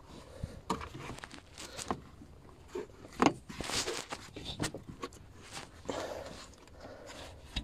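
Irregular clicks, taps and rustles of hose-kit parts and clamps being handled by hand, with one sharper click a little over three seconds in.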